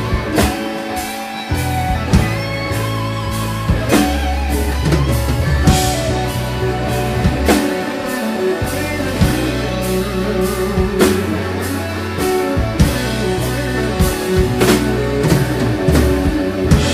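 Live band playing a slow soul-blues ballad: drum kit, bass, electric guitar and keyboard, with the horns joining in.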